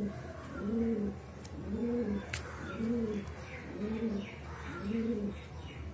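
A dove cooing over and over, a low call that rises and falls, about once a second.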